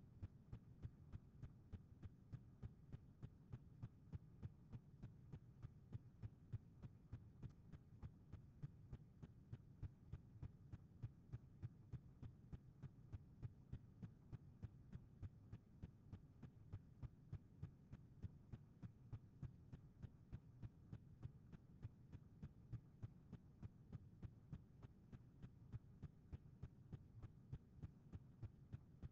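Near silence: a low steady hum with faint, evenly spaced ticks a few times a second, the recording's background noise.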